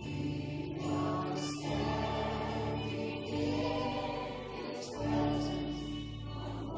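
Slow worship music: group singing over sustained low chords.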